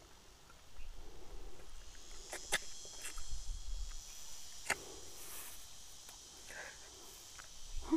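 Insects chirping in a steady high drone, with a few sharp clicks in the middle.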